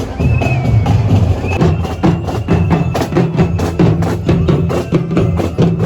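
Percussion-heavy music with a fast, steady drumbeat of sharp knocking strokes, about four a second, over a low bass line.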